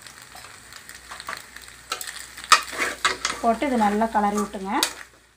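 Metal spoon stirring macaroni in an aluminium kadai, scraping and clinking against the pan, with a few sharp knocks from about two seconds in. A voice speaks briefly near the end.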